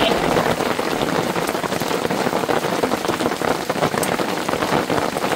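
Hail pelting a fabric camp awning overhead and the meadow around it: a dense, steady patter of many small impacts, with a few sharper individual hits.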